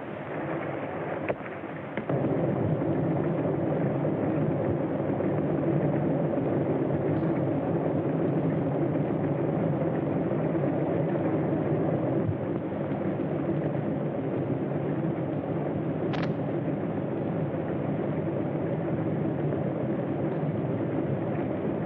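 A plane's engines running steadily, starting abruptly about two seconds in and easing slightly later on, heard through an old, narrow-band film soundtrack.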